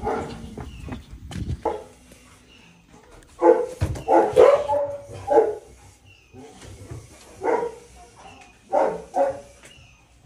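A dog barking, about nine barks in irregular bursts, with a quick run of them around the middle.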